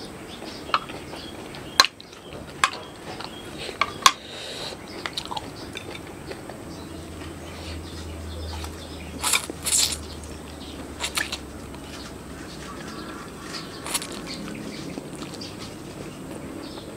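Close-up eating of spicy Samyang instant noodles: chewing and noodle slurping, with sharp clicks of cutlery against the plate in the first few seconds. The loudest slurping bursts come a little past the middle.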